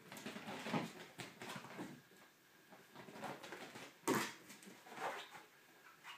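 Fennec foxes playing on a leather sofa: irregular scuffling and thumps of paws on the leather as they jump and scramble, with one louder thump about four seconds in.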